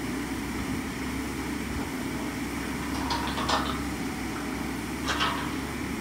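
A machine running with a steady low hum, with two short, sharper noises about three and five seconds in.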